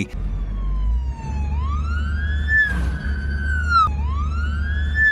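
Fire truck siren wailing, its pitch rising and then dropping sharply in repeated sweeps about two and a half seconds apart. It is heard from inside a following car over a steady low road rumble.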